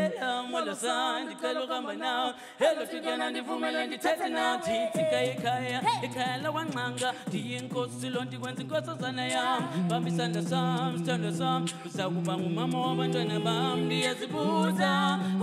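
A cappella vocal group singing in close harmony into microphones, with a low sung bass line holding long notes beneath the lead voices.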